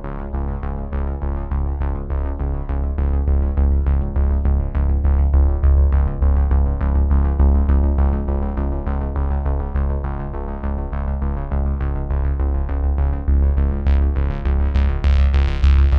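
Instrumental background music: synthesizer and keyboard notes in a steady pulse, about three a second, over a deep sustained bass, growing brighter near the end.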